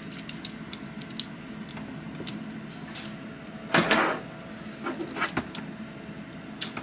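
Small plastic clicks and rattles of a Transformers action figure's joints being worked by hand, its ankles and feet clicking into their locking positions. A louder plastic clatter a little under four seconds in, with a few more knocks about a second later.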